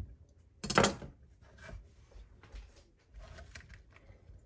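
Chopped green onions being handled on a cutting board: one sharp knock about a second in, then quieter scraping and shuffling as the pieces are pushed together.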